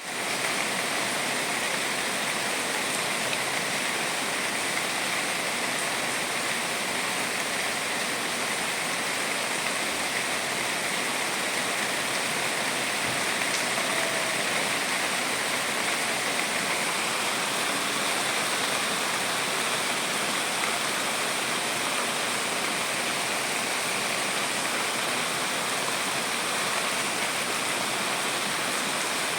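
Steady rain: an even, unbroken hiss of falling water that holds at one level throughout.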